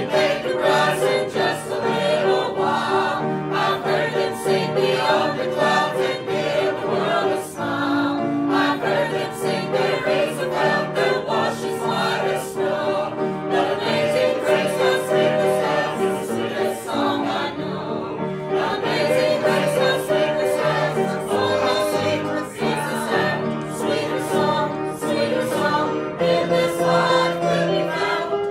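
Gospel music: several voices singing together over an instrumental accompaniment.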